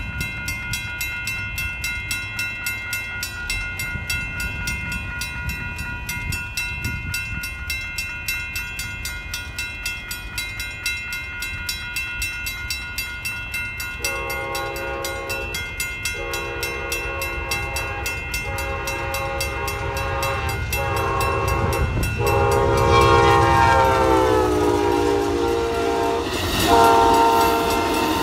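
Western-Cullen-Hayes Model M mechanical crossing bell ringing in rapid, steady strokes; the old bell is worn out but still works. About halfway through, an Amtrak passenger train sounds its horn in a run of blasts, the longest one dropping in pitch as the locomotive passes. The train's rumble builds, and another loud horn blast comes near the end.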